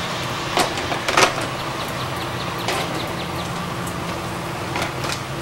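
Steady rain falling, with a few louder drops striking close by, and a steady low hum underneath.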